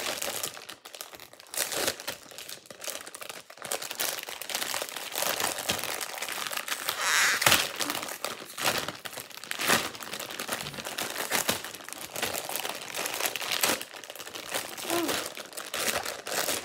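Clear plastic bag packaging of a pop-it fidget toy crinkling and rustling as hands work at it to get it open, in irregular crackles with a louder stretch about halfway through.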